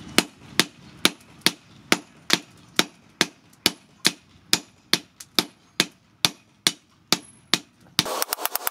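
Hand hammer striking red-hot leaf-spring steel on a round steel post anvil, sharp blows in an even rhythm of about two a second. Near the end a louder, faster run of strikes begins over a steady background noise.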